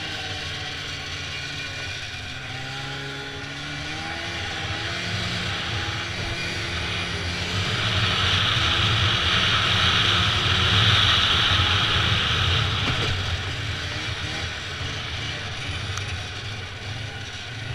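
Snowmobile engine running while riding over snow, its pitch rising and falling with the throttle. It grows louder through the middle for about five seconds, then eases back.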